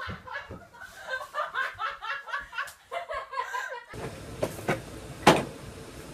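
Laughter in quick, repeated bursts that cuts off abruptly a few seconds in. Then a steady background hum with a couple of light clicks and one sharp knock.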